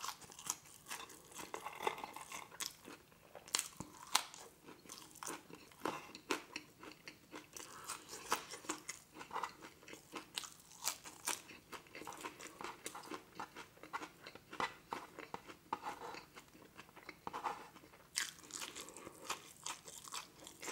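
Close-up chewing of crispy McDonald's French fries: many short, irregular crunches.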